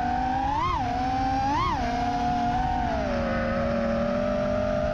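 FPV quadcopter's brushless motors whining. The pitch jumps up sharply twice, about a second apart, as the throttle is punched, then settles lower and steady.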